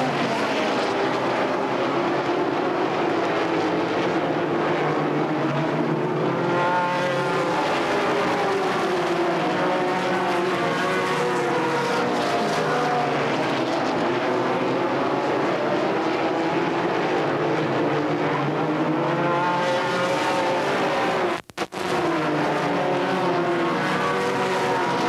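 A pack of stock race cars at full race speed, their V8 engines running hard with pitches rising and falling as the cars go past. The sound cuts out very briefly about 21 seconds in.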